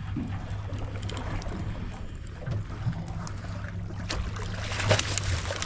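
Low steady hum of the boat's idling engine, with wind on the microphone. From about four seconds in comes splashing, loudest near the end, as a hooked summer flounder thrashes at the surface beside the landing net.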